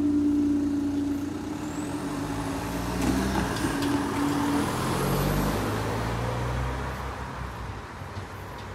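A car drives across a level crossing, its engine and tyres passing close by and then fading away. A steady hum from the full barriers as they finish rising stops about halfway through.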